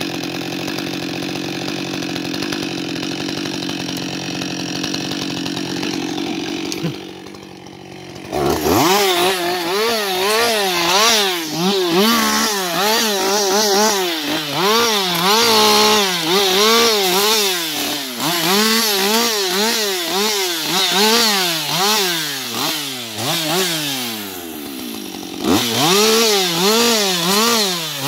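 Husqvarna 560 XP two-stroke chainsaw idling steadily, then, about eight seconds in, revved up and down over and over, roughly once a second, as it cuts branches off felled tree trunks. It drops back briefly a few seconds before the end, then revs again.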